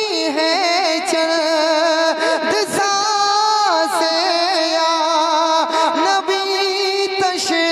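Devotional naat singing: a voice drawing out a long, wavering melodic run without words over a steadier held note.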